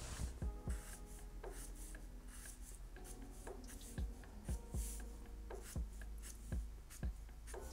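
Sharpie marker drawing many short scratchy strokes on paper, with soft thumps as the tip strikes the page. Soft background music with held notes plays underneath.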